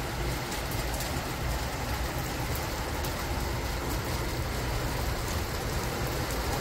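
Heavy rain falling onto pavement: a steady, even hiss, with a low rumble underneath.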